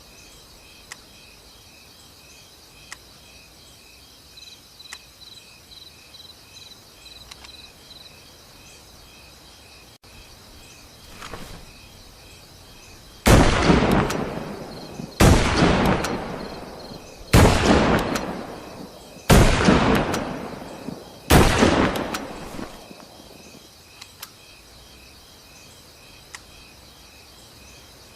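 Five rifle shots from a Winchester Model 70, about two seconds apart, each cracking sharply and echoing away over a second or so. Birds chirp faintly in the background.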